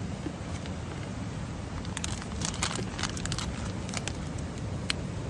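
Steady rush of wind and rain on a tent, heard from inside, with scattered light crackles and taps about two seconds in and again near the end.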